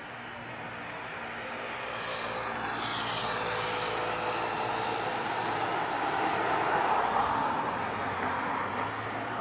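Distant vehicle noise, a broad rumble that swells to a peak about seven seconds in and then eases off.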